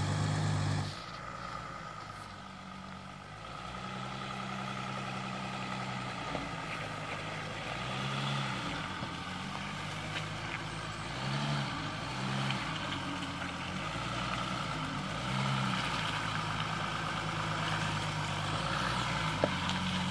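Jeep Grand Cherokee CRD's V6 turbo-diesel running at low revs as it crawls off-road, the revs rising briefly several times under throttle. It is heard close and loud for about a second, then from further away.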